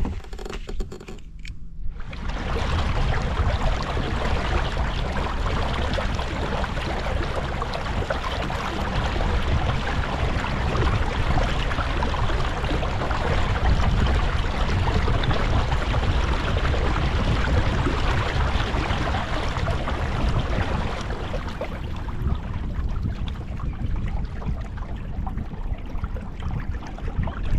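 Steady rushing of water and wind around a kayak under way on the lake, starting about two seconds in.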